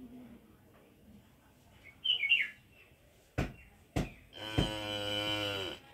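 A young calf moos once, one long call of about a second and a half near the end. Before it come a short high chirp about two seconds in and two sharp knocks.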